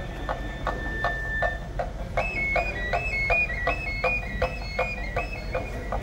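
Traditional flute-and-drum music of the voladores (bird men) dance. A high flute holds one long note, then about two seconds in breaks into a quick melody of stepping notes, over a steady drumbeat of about two to three strokes a second.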